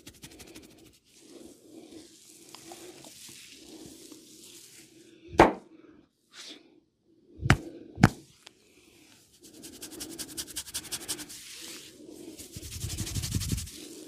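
Head massage: fingers scratching and rubbing through oiled hair in fast rustling strokes, with three loud smacks about five, seven and a half and eight seconds in.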